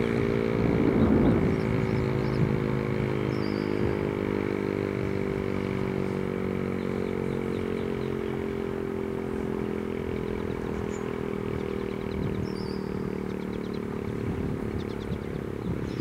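American Signal T-135 outdoor warning siren sounding a steady tone, its pitch sagging very slightly and its level gradually fading. Faint bird chirps are heard in the background.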